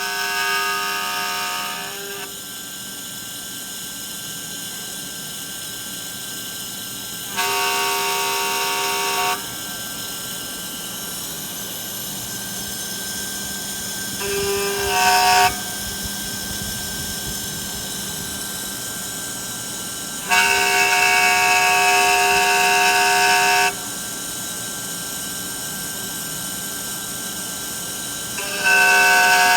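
Stepper motors of a DIY CNC engraving machine whining in steady pitched tones during its moves. There are about five bursts of one to three seconds, one rising in pitch about halfway through, with a quieter steady machine noise between them.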